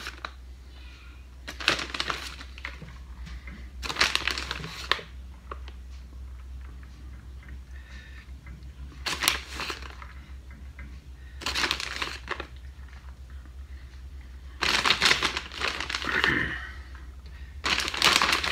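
Plastic bag of shredded cheese crinkling in six short bursts a few seconds apart as a hand dips in for more cheese, over a steady low hum.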